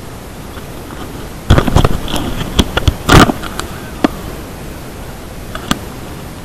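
Steady loud hiss on the camera's microphone, the fault in the recording that the uploader apologises for. Over it come a cluster of loud clicks and knocks about a second and a half in, and single knocks near the middle and later, from the camera being handled.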